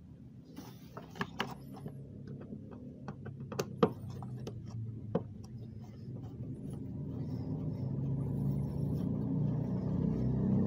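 Sharp clicks and taps of a screwdriver and the metal hose clamp on the air intake duct as the clamp is tightened. From about halfway, the low hum of a vehicle engine grows steadily louder in the background.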